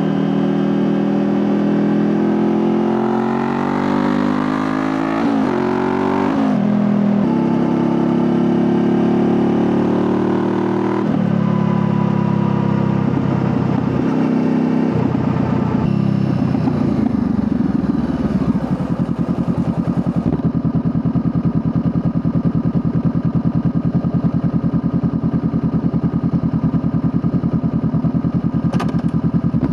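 Honda CBR500R parallel-twin engine revving up through a couple of quick upshifts, holding a steady pitch for a few seconds, then winding down. From about halfway it settles into a low, even idle-like pulse, with one short click near the end.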